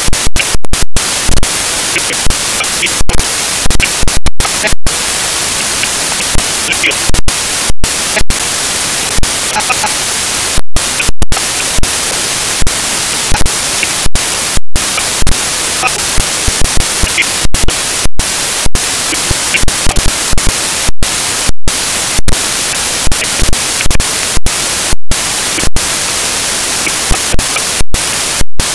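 Loud static hiss from a corrupted digital audio track, with no clear speech through it, broken many times by sudden cuts in the signal, about one or two a second.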